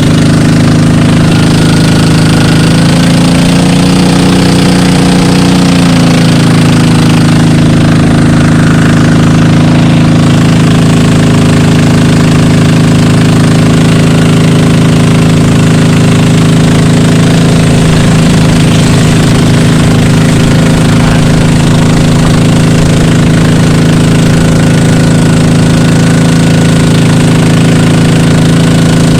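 Motorized bangka boat engine running loudly and steadily under way, its pitch rising briefly a few seconds in and then settling back.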